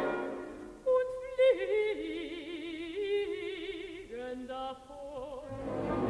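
Mezzo-soprano singing a slow solo phrase with wide vibrato, nearly unaccompanied, as the orchestra dies away at the start. The orchestra swells back in near the end.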